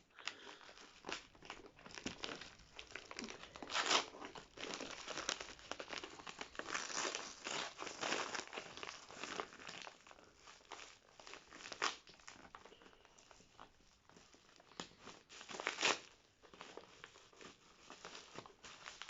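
Wrapping around a book being crumpled and torn open by hand: irregular rustling and crinkling, with louder rips about four seconds in and again near the end.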